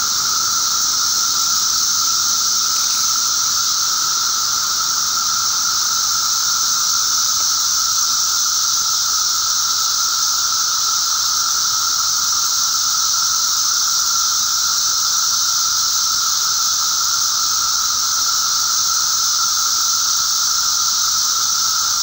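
Chorus of periodical cicadas (Magicicada) in a mass emergence: a loud, steady, unbroken drone, a lower droning tone with a higher hiss layered over it.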